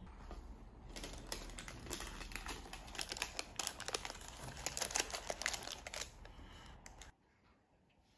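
Paper sandwich wrapper crinkling and rustling as hands open and handle it, a dense run of small crackles that stops abruptly about seven seconds in, leaving faint room tone.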